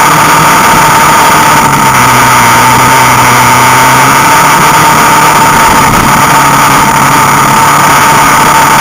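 ATV engine running while riding a dirt trail, loud and steady; its note drops a little about two seconds in and comes back up about two seconds later.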